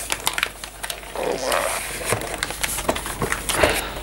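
A cardboard box and the plastic-wrapped spool of welding wire inside it being handled: crinkling and rustling with many light taps and knocks.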